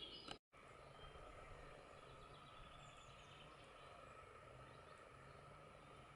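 Near silence: faint outdoor background noise with a steady faint hum and a few faint bird chirps, broken by a brief dead gap about half a second in.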